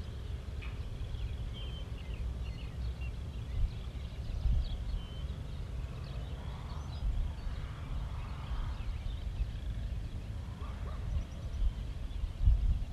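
Outdoor ambience: wind rumbling on the microphone, with scattered short bird chirps.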